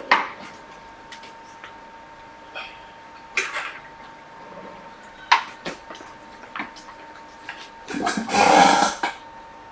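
Small tools and items being handled on a repair bench: scattered clicks and taps, a short rustle about three and a half seconds in and a louder rustling hiss lasting about a second near the end, over a faint steady whine.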